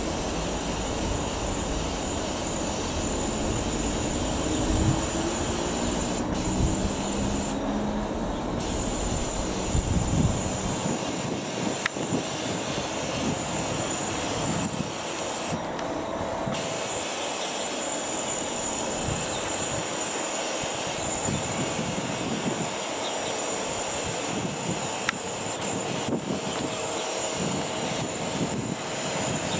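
Sikorsky S-92 helicopter flying at a distance: a steady drone from its twin turboshaft engines and rotor. The deeper rumble drops away about ten seconds in.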